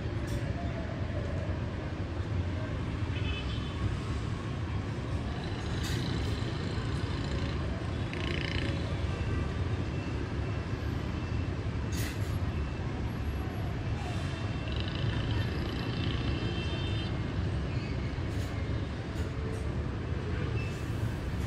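Steady rumble of city street traffic, mostly motorbikes with some cars, with a few faint high-pitched tones now and then.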